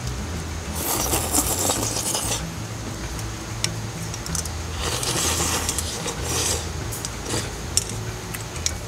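Chopsticks clicking and scraping against stainless-steel bowls as flat udon noodles are lifted from the dipping sauce: two longer scraping noises about a second and about five seconds in, and a few sharp clinks, most of them in the second half.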